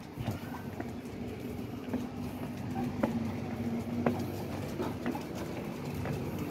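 Steady low mechanical hum, with a held tone in its middle part and a few sharp clicks and taps scattered through.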